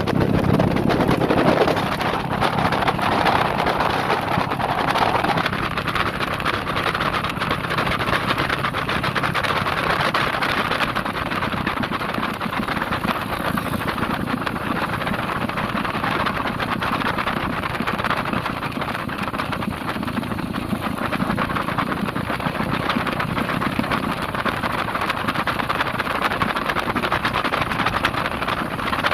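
Vehicle driving along a road: steady engine and road noise.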